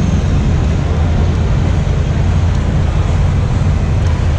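Off-road adventure motorcycles running on an indoor dirt track: a loud, steady low rumble in a large exhibition hall.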